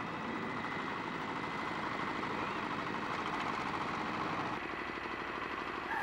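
Engine of a small walk-behind power tiller running steadily as it pulls a plow through the soil.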